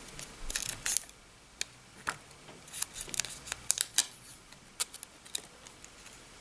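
Thin plastic backing film crackling and clicking as it is peeled off a screen protector: many short, sharp crackles, bunched about half a second in and again around three to four seconds in.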